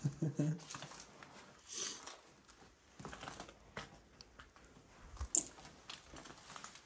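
Scattered crunches and crinkles of debris underfoot, irregular and uneven, with a few sharper knocks about five seconds in. A brief murmur of voice comes at the very start.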